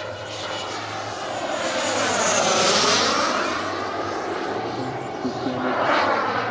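Turboprop engine of a large scale RC model Pilatus PC-21 running in flight overhead. It grows loudest about three seconds in, where its pitch dips and then rises again, and swells once more near the end.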